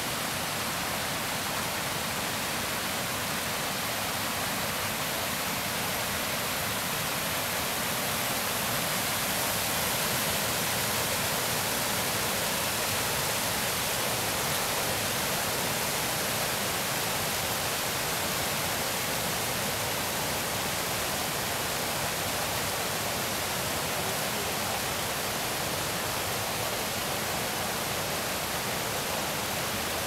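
Mountain stream cascading down a rocky waterfall, its white water rushing in a steady, even hiss.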